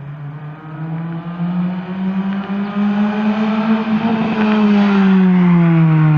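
Acura RSX's four-cylinder engine and exhaust pulling hard: the engine note climbs steadily in pitch for several seconds and grows louder, then drops in pitch near the end as it comes off the throttle or shifts.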